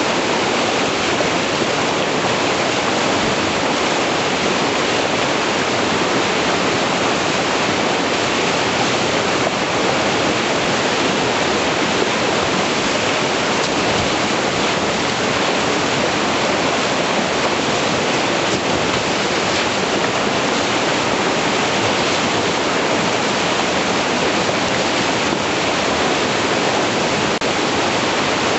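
Loud, steady rush of whitewater pouring through a river rapid, unbroken and even throughout.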